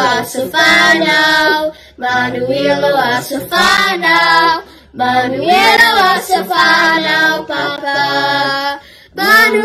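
A small group of children and teenagers singing a birthday song together in three sung phrases, each ending in a short breath pause.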